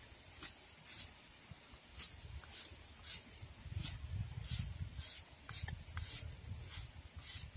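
A knife blade scraping shavings off a block of palm sugar onto a stone mortar, in short scraping strokes about two a second.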